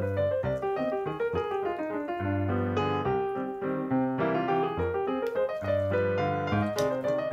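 Background piano music: a run of quick notes over held low bass notes.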